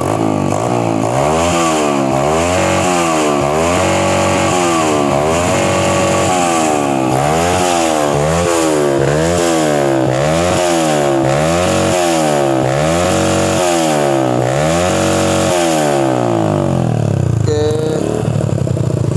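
Yamaha Jupiter Z's four-stroke single-cylinder engine is revved again and again through a rebuilt racing silencer with a short baffle and a 38 mm outlet. The note rises and falls about once a second, then drops back to idle near the end.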